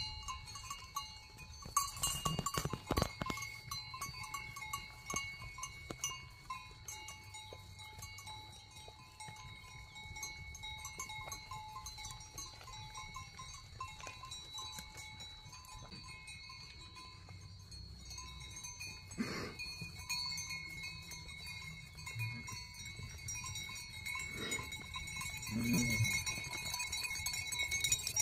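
Cowbells of several pitches clanking and ringing without pause as a herd of cows walks by, with a short low call from one of the animals near the end.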